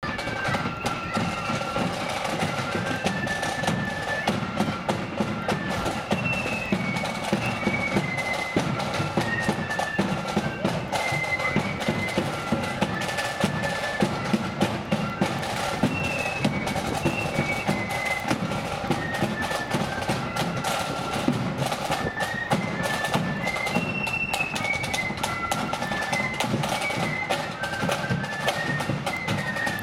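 Marching flute band playing a tune: flutes carry a high stepping melody over snare (side) drums and a bass drum beat.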